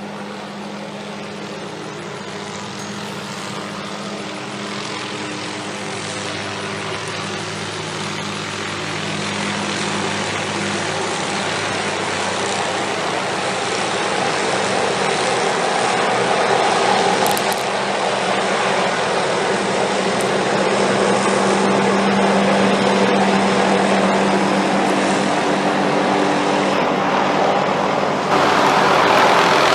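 Helicopter running steadily, growing gradually louder, with a further jump in level near the end.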